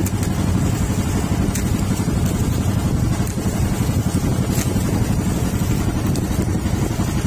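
Engine of a motorized outrigger fishing boat (bangka) running steadily, a low, even drone with a fast pulse.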